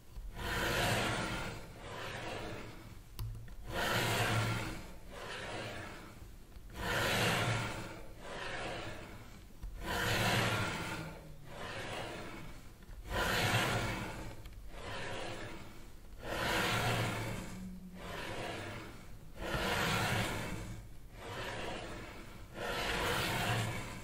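Slow, even breathing, in and out, a strong swell of breath about every three seconds with a weaker one between.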